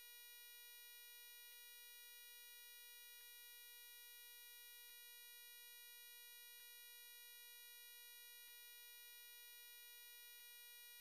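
Near silence but for a faint steady electronic tone, a buzz with many overtones, crossed by a faint tick about every second and three quarters.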